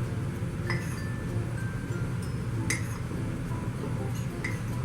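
A small metal spoon clinking against a mug now and then while dry ingredients are stirred, over steady background music.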